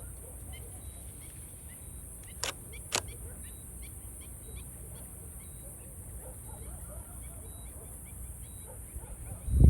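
Fireworks show: a low rumble throughout, two sharp cracks about two and a half and three seconds in, and a heavy boom of a shell bursting near the end.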